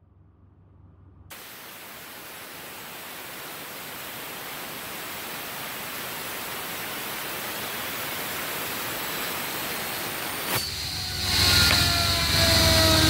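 Nested steel ball bearings of a bearing-in-a-bearing spinner whirring as fingers flick the inner races, a steady hiss that grows slowly louder as they are spun up. About ten seconds in the sound turns louder, with a low hum and several whines sliding down in pitch.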